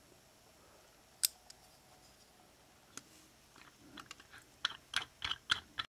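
Small sharp clicks and taps of a diecast metal toy car being handled: a single click about a second in, another near three seconds, then a quick run of clicks and taps as the car is set upside down into a plastic work holder.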